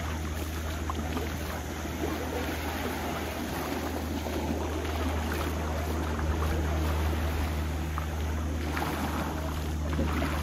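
Seaside ambience: a steady low hum under an even hiss of wind and small waves.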